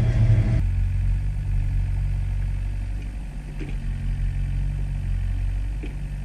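Compact excavator's diesel engine running steadily, with a couple of faint knocks from the digging.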